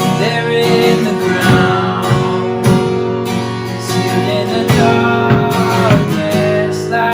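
Worship band playing an instrumental passage: acoustic guitar strumming in a steady rhythm over long held chords.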